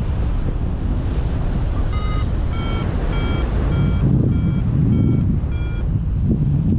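XCTracer paragliding variometer beeping its climb tone: a string of short, evenly spaced beeps, just under two a second, starting about two seconds in. This signals that the glider is rising in lift. Steady wind rush on the microphone runs underneath.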